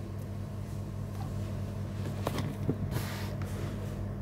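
Steady low electrical-sounding hum of room noise, with a few light knocks from handling about halfway through and a short rustle a little later.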